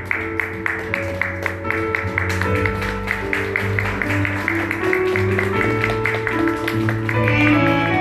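Instrumental background music: a steady run of plucked notes over held tones.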